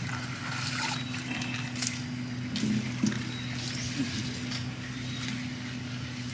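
Steady low hum of a motor, with light rustling and a few small knocks as hands handle a mesh net enclosure at the water's edge.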